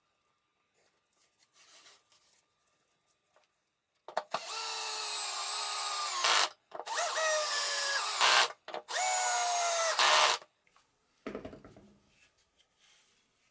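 Electric drill running in three bursts into wood, its motor whine rising in pitch as each burst starts and getting louder near the end of each, followed by a short lower-pitched rattle.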